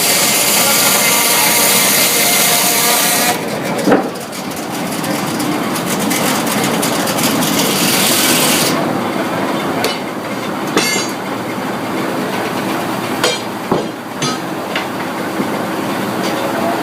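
Sawmill machinery running; a loud noise filling the high range cuts off sharply about three seconds in, leaving the machinery running with scattered sharp knocks and clanks.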